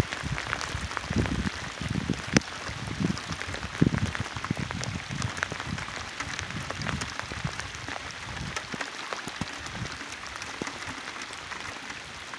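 Steady rain falling, with many separate drops striking close by, and irregular low thumps through roughly the first eight seconds.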